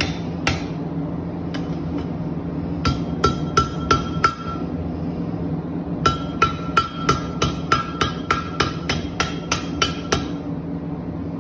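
Hammer striking a steel chain link on an anvil, each blow ringing at the same pitch, as the link is bent over so its scarfed ends meet for a fire weld. A few scattered blows come first, then a run of about six, then a longer run of about three to four blows a second, over a steady low drone.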